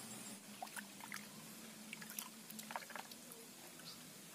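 Hands swishing water in a plastic basin while washing small cleaned fish: faint, irregular small splashes and sloshing.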